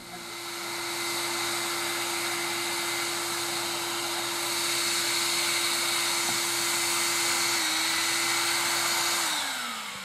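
A homemade bee-vac, a shop vacuum, runs steadily with a high hiss and a held motor hum while it sucks bees off the comb through its hose. It spins up at the start, and near the end it is switched off, its pitch falling as the motor winds down.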